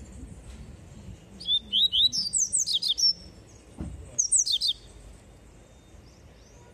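Caged papa-capim (a Sporophila seedeater) singing. It gives a fast phrase of high, sweeping whistled notes lasting nearly two seconds, starting about a second in, then a shorter burst near the middle. There is a soft thump just before the second burst.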